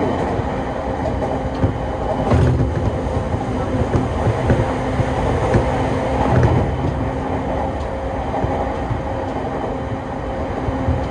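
A JR Musashino Line electric commuter train running, heard from inside the car. There is a steady low rumble of wheels on rail with a constant hum over it, scattered clicks from the track, and two heavier swells of rumble, about 2.5 s and 6.5 s in.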